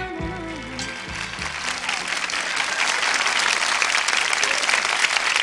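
Audience applauding at the end of a song, the clapping building and growing louder as the last held notes of the band's accompaniment die away in the first second or so.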